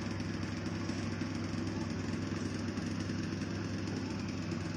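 A steady low mechanical hum, like a motor running, holding an even pitch and level throughout.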